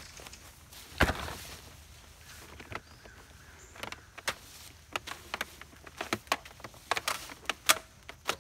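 Shop vacuum's hose and power cord being handled while the vacuum is switched off: a heavy thump about a second in, then a run of sharp clicks and knocks.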